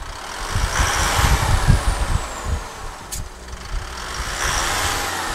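Isuzu 4JJ1 3.0-litre turbo-diesel revved twice from idle. Each rev brings a high turbo whistle that slides slowly down as the revs fall, with a sharp click between the two revs.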